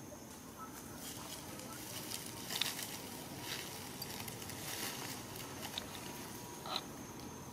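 Rustling and crackling in grass and leaves as long-tailed macaques move about, a few short sharp rustles over a steady outdoor background, the loudest about two and a half seconds in and again near the end.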